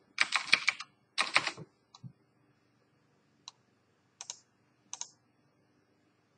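Typing on a computer keyboard in two quick bursts, followed by a few single clicks about a second apart.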